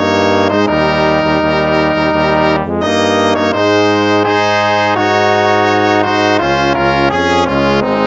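Instrumental hymn of praise with a brass sound, moving slowly in held chords that change about once a second.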